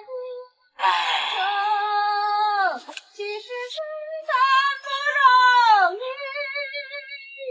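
A high voice singing long held notes with a slight waver, each sliding down in pitch at its end.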